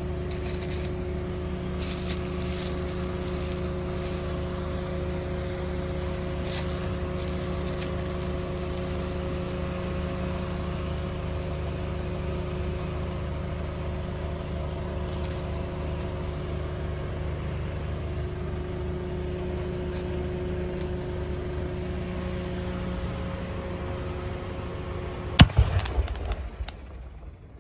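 A steady low mechanical hum with a couple of held tones, like an idling engine. Near the end comes a loud firework bang with a few smaller cracks after it, as the first shell of a 5-inch display shell cake fires.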